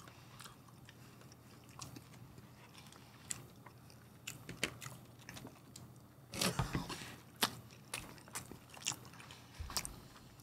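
Close-miked chewing and biting of tacos: a string of small clicks and mouth sounds, with a louder cluster about six and a half seconds in.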